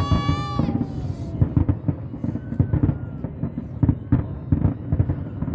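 Aerial fireworks going off: a fast, uneven string of bangs and crackles. A high whistle sounds in the first second and falls away.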